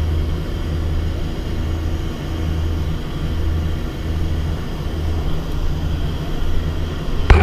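Aircraft engines droning, heard from inside the cabin: a loud steady hum with a slow, even throb. A sharp knock near the end.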